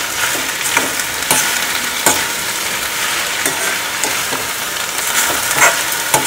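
Okra and onions sizzling in hot oil in an iron kadhai while being stir-fried, with a metal spatula scraping and knocking against the pan about once a second.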